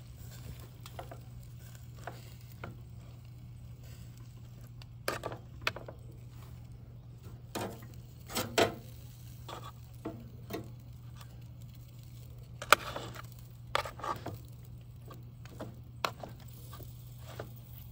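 Metal tongs clicking and scraping against the grill grate and the dish now and then as grilled shrimp and bratwursts are handled, over a steady low hum.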